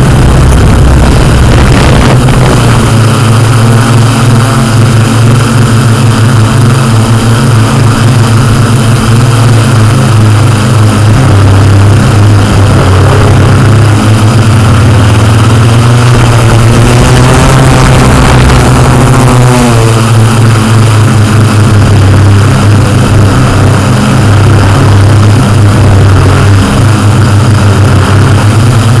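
Yuneex Q500+ quadcopter's electric motors and propellers running loud and steady in flight. For a few seconds in the middle, the pitch wavers up and down as the motor speeds change.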